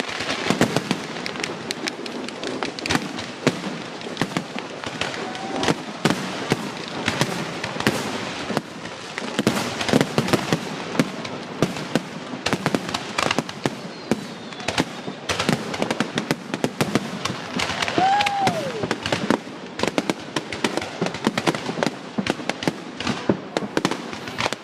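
Fireworks going off in a dense, continuous barrage of bangs and crackling.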